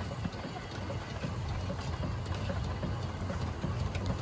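Stationary steam engine of an animal feed mill running steadily, a continuous low mechanical drone.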